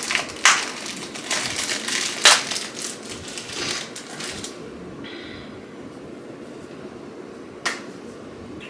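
Product packaging being handled and unwrapped: crinkling and crushing with sharp clicks for about four seconds, then quieter, with a short hiss about five seconds in and a single click near the end.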